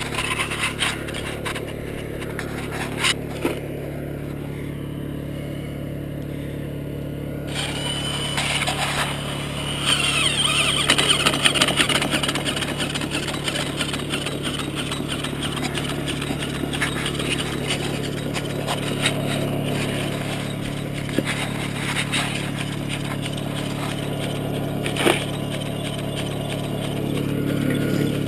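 Small gasoline engine running steadily, powering the blower of a dry washer, with scattered rattles and clicks of dirt and rocks being shoveled onto the washer's screen.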